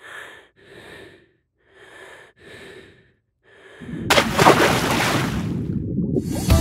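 Five hissing breaths drawn through a scuba regulator, then a loud splash about four seconds in as a diver drops into the sea, followed by a rush of churning water and bubbles.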